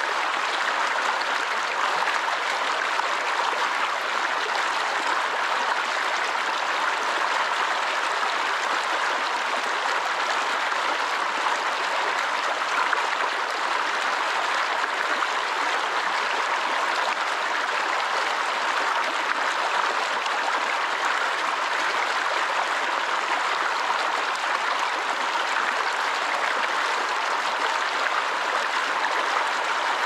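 Small mountain stream rushing and splashing over rocks, a steady, unbroken sound of water.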